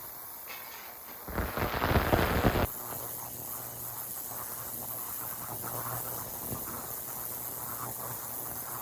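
A brief loud rush of noise about a second in, then a low steady hum from an ultrasonic cleaner switched on and running.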